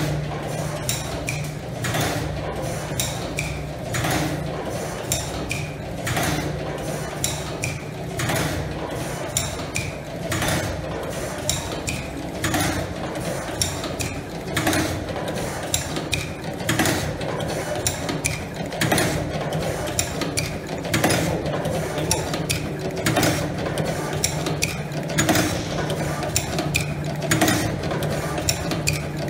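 Automatic wire cutting, stripping and tin-soldering machine running through its cycle: a steady hum under repeated mechanical clacks and clicks, a loud one about every two seconds.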